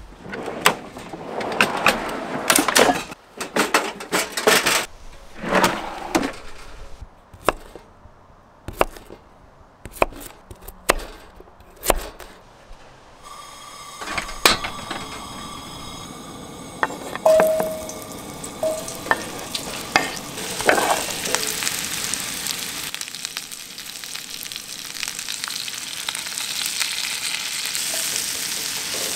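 Knocks and clatter of camp-kitchen gear being handled. About 14 s in, a Coleman propane camp stove's burner starts to hiss. Then potatoes sizzle and fry in a pan while being stirred with a spatula, the sizzle growing louder toward the end.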